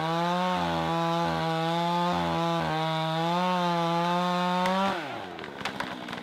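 Two-stroke chainsaw held at high revs, cutting into the trunk of a leaning tree, its pitch wavering slightly under load. About five seconds in the throttle is released and the engine drops in pitch and falls away.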